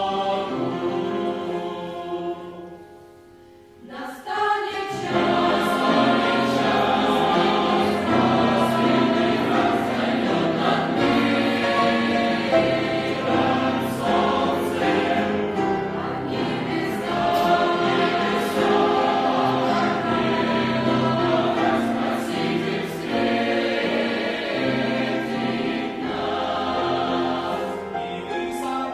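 Youth choir singing a Russian Christian hymn in several-part harmony. The singing dies away about two seconds in and comes back in about two seconds later.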